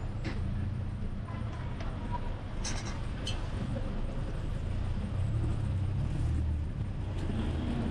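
Steady low rumble of city street traffic, with a few short sharp clicks about three seconds in.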